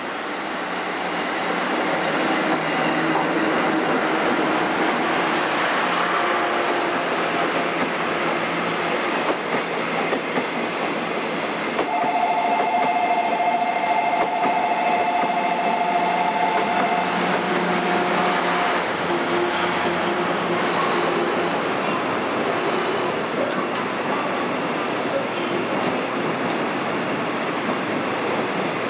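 A JNR EF66 electric locomotive and its train of blue sleeper coaches passing close by. The steady rumble of wheels on rail builds over the first couple of seconds, and a thin squealing tone rides over it from about twelve to seventeen seconds in.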